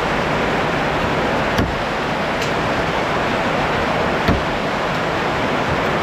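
Steady rush of flowing water, with a few faint brief clicks about one and a half, two and a half and four seconds in.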